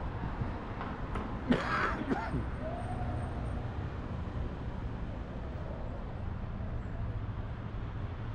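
City street ambience: a steady low rumble of distant traffic. A short, sharp, loud sound stands out about a second and a half in.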